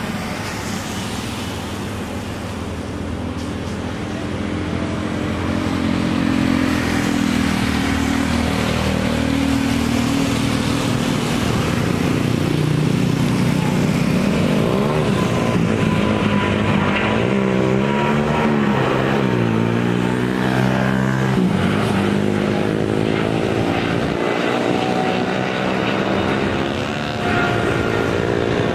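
An Emirates Boeing 777's twin turbofan engines at takeoff thrust. The jet noise grows louder over the first several seconds of the takeoff roll, then holds steady and loud with a sweeping, wavering tone as the airliner lifts off and climbs past.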